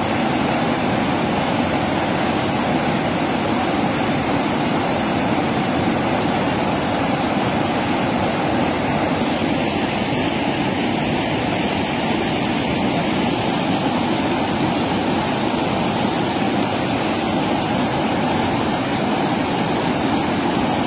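Fast mountain river rushing over rapids and boulders: a loud, steady, unbroken noise of water.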